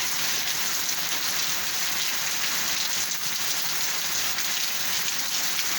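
Steady heavy rain falling, a dense even hiss with fine patter of drops.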